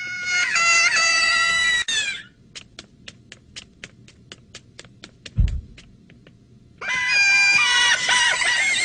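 High-pitched, squeaky gibberish voices of animated ZooZoo characters: one cry over the first two seconds and another, shouted, over the last two. Between them come quick light ticks about four a second and one dull thump.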